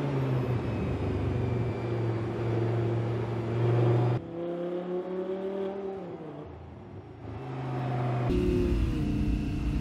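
Audi R8 V10 performance's naturally aspirated 5.2-litre V10 running as the car drives. The sound changes abruptly about four seconds in to a quieter note that rises and then falls in pitch, and again about eight seconds in to a louder steady drone.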